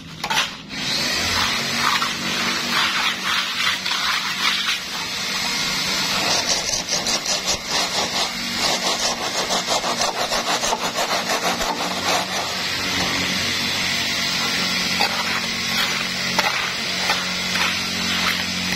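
Steel trowel scraping through wet cement mortar as it is spread and levelled, in quick repeated strokes that come fastest in the middle, over a steady low hum.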